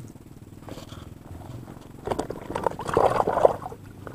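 Close handling noise as the angler deals with the fish and his gear: a second and a half of loud, irregular rustling and crackling near the microphone, about two seconds in, over a steady low hum.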